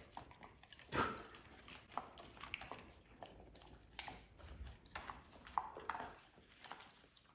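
German Shorthaired Pointer chewing and biting a piece of steak off a plate: irregular clicks and snaps of the jaws, the sharpest about a second in and about four seconds in.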